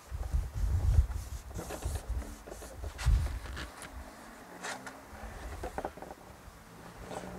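Handling noise: irregular low bumps and rubbing, heaviest in the first second and again about three seconds in, with scattered light clicks of objects being picked up and set down.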